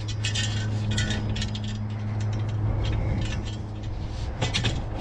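Long metal tubes clinking, rattling and scraping against each other and against other scrap metal as they are handled and loaded into a trailer, with a steady low hum underneath.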